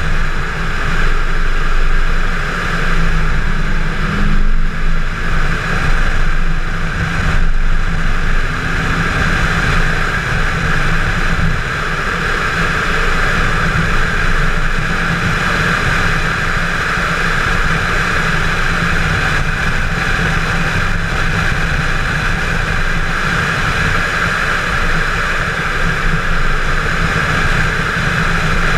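Chevrolet Camaro 1LE at speed on a road course, heard from inside the cabin: a continuous engine drone mixed with wind and tyre noise. The level swells and dips in the first several seconds, then holds steadier.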